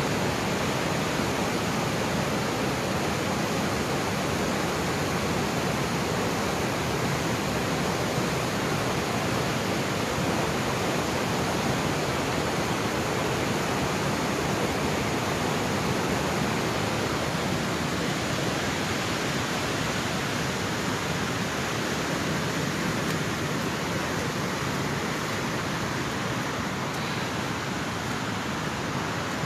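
Floodwater rushing steadily through a breached embankment, a continuous even rush of water that sounds the same throughout.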